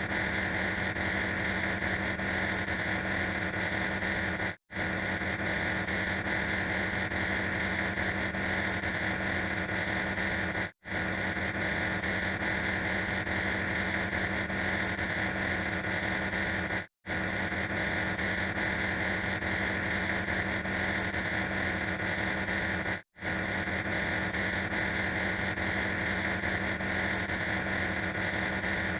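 A steady, harsh noise sound effect played on a loop, with a brief silent gap about every six seconds as the clip restarts.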